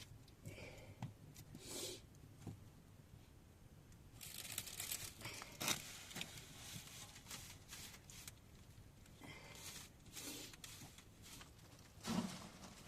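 Irregular rustling and crinkling of material being handled, with a few sharp clicks. It is busiest about four to six seconds in, with another short burst near the end.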